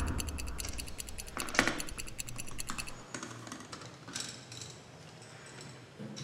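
Socket ratchet clicking rapidly and evenly as a 13 mm bolt is unscrewed, stopping about three seconds in. A few light clicks of parts being handled follow.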